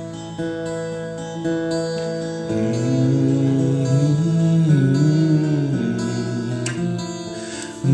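Acoustic guitar instrumental break, a K S Lofquist New Western Jumbo played with ringing chords and single notes between sung verses.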